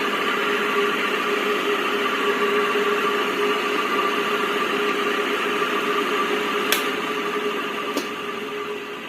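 Ceiling fan running: a steady motor hum with air rushing, plus a couple of light clicks in the second half, fading slightly near the end.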